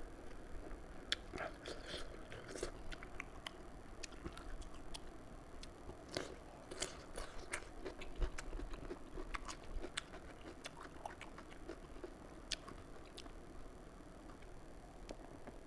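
Close-miked chewing and biting of fish curry with rice, with many scattered sharp mouth clicks and small crunches.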